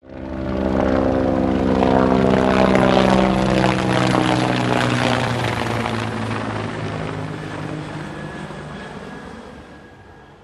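Propeller aircraft engine sound, a steady drone. It swells in within the first second and fades away slowly over the second half.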